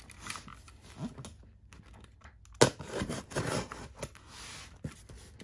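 Cardboard shipping box being opened by hand: rustling and scraping, with a louder tearing rip that starts sharply about two and a half seconds in.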